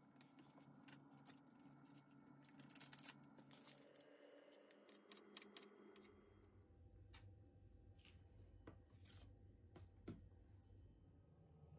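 Faint kitchen handling sounds: quick light ticks as toppings are scattered onto a pizza base, then a knife slicing sausages on a plastic cutting board, with a few separate taps about a second apart.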